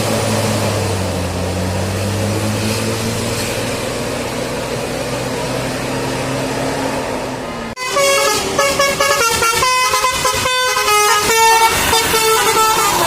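A bus's engine running with a steady low hum, its pitch drifting slightly. About eight seconds in there is a sudden cut to a 'telolet' multi-tone bus horn playing a quick melody of changing notes.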